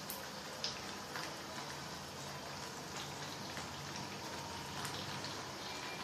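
Carrot halwa, grated carrot cooked down in milk and sugar, simmering in a pan on a low flame: faint bubbling with scattered soft pops over a steady hiss.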